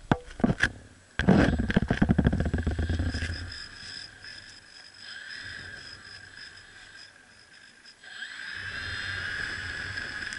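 Motor and propeller of a radio-controlled Cessna 182 model airplane running with a steady high whine. Near the start there are a few knocks and a loud rushing gust. At about eight seconds the whine swells as the throttle opens for the takeoff run.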